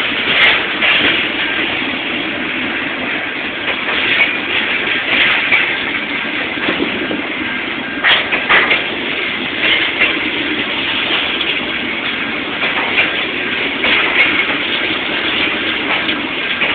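Empty flat wagons of a freight train rolling past: steel wheels running on the rails with scattered clacks as the wheels cross rail joints.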